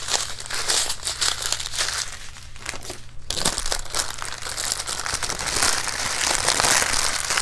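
Thin plastic bags of diamond-painting drills crinkling as they are handled and folded, with a short lull a couple of seconds in and busier crinkling toward the end.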